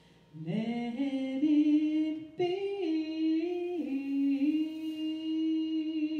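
A woman's solo voice singing a slow phrase of a few notes, without the band, ending on a long held note.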